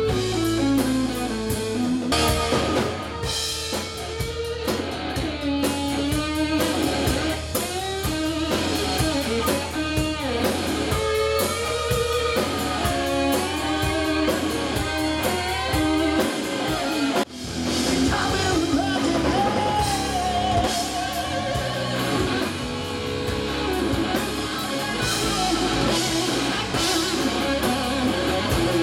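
Live southern rock band playing: an electric guitar lead with bent, gliding notes over bass guitar and drum kit. The sound drops out for an instant just past the middle, then the music carries on.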